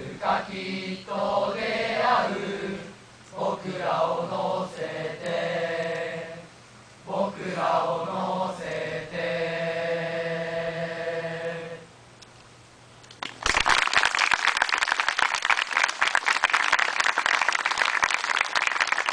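A choir of boys singing a Japanese song together, ending on a long held note. After a short pause, the audience starts applauding and keeps clapping.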